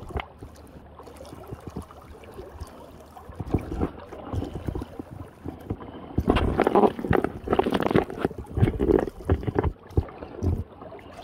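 Water splashing and sloshing in irregular bursts, loudest about halfway through, as a person wades a shallow stream.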